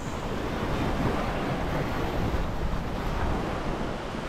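Waves breaking on a sandy beach, mixed with wind blowing across the microphone: a steady rushing noise with a low rumble.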